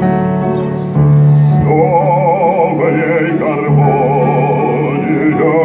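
A man singing in a classical, operatic style with a wide vibrato, coming in about two seconds in over an accompaniment of piano and cello with repeated low bass notes.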